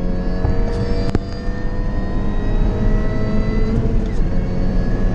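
Mini Cooper S R53's supercharged 1.6-litre four-cylinder engine under hard acceleration, heard from inside the cabin: the revs climb steadily, drop briefly just before the fourth second as if at a gear change, then climb again. A single sharp click about a second in.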